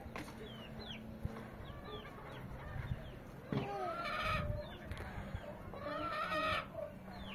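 Repeated short animal calls that bend up and down in pitch, some in quick runs, over a faint steady low hum.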